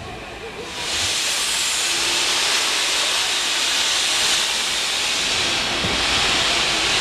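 Steam locomotive letting off steam: a steady hiss that starts suddenly about a second in and carries on.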